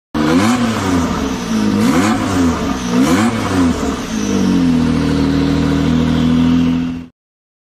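Hyundai Reina car engine revved up and back down three times, then held at a steady raised speed before cutting off suddenly. The engine has a knocking complaint that the mechanics traced to worn timing chain guides and tensioner.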